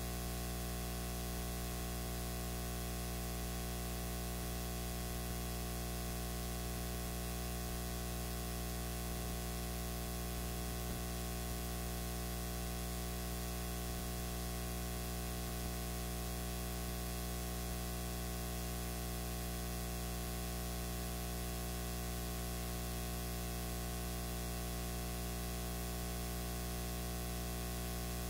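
Steady electronic hiss with a low hum, unchanging throughout: recording noise, with no voices or crowd sounds standing out.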